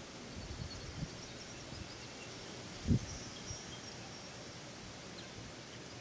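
Outdoor ambience: a steady hiss with faint, high chirps of small birds, and a few soft low thumps, the loudest about three seconds in.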